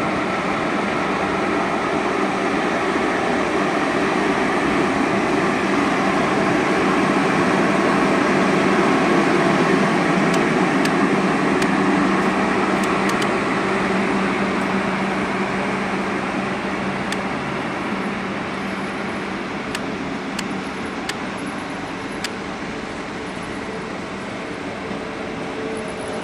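CFR class 40 electric locomotive hauling a passenger train slowly past: a steady electric hum over wheel-on-rail rumble, building to a peak about a third of the way through and then fading as the train moves away. A few sharp clicks come in the second half.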